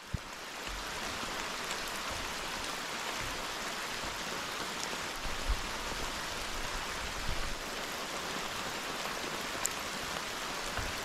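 Steady rain falling, an even hiss, with a few faint ticks scattered through it.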